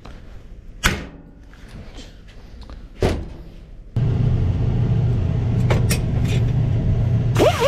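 New rivets being set in an espresso machine's bottom plate: two sharp snaps about two seconds apart. About four seconds in, a steady, loud hum with hiss starts abruptly.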